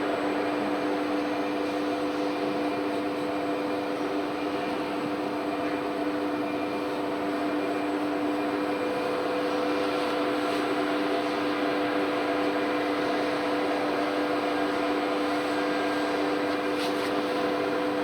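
Blue Elephant 1530 ATC CNC router machinery running with a steady hum: two steady tones over an even hiss, unchanging in pitch.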